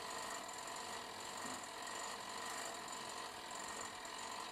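Faint, steady running of an electric toaster oven with its heating elements on, with light mechanical ticking such as a dial timer makes.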